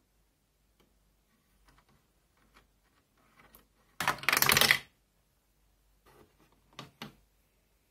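Small Playmobil plastic figures and pieces being handled on a hard surface: scattered light clicks, a louder rattling clatter lasting under a second about halfway through, then a couple of sharp clicks near the end.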